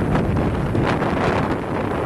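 Wind buffeting the microphone of a camera carried by a moving cross-country skier: a loud, steady low rumble, with a few short hissing swishes laid over it.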